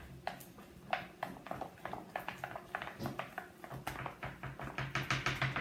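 Fluffy shaving-cream slime being mixed in a bowl: a quick run of wet clicks and taps that grows faster and louder near the end.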